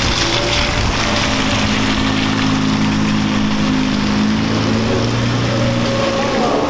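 A Nissan GT-R's twin-turbo V6 running at low, steady revs as the car rolls slowly away, with the hiss of tyres on wet pavement. The engine note stays flat in pitch and fades near the end.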